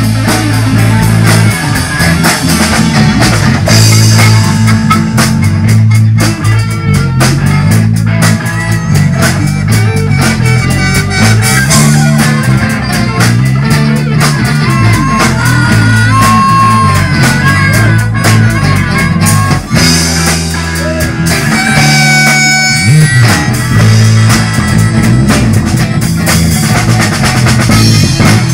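Live rock band playing: distorted electric guitars over a steady bass line and drum kit, loud and continuous.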